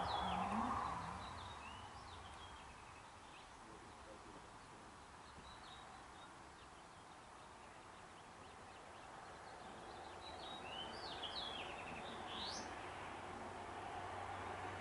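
Faint bird chirps: a few short, high notes near the start and a cluster of chirps about ten to twelve seconds in, over steady outdoor background noise that grows louder near the end.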